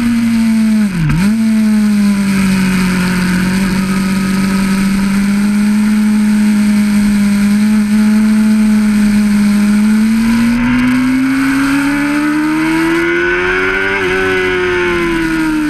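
Honda CBR600RR's inline-four engine running hard, heard onboard with wind rush on the microphone. The engine note dips and recovers in a quick gear change about a second in, then holds steady. The revs climb for a few seconds and ease off near the end.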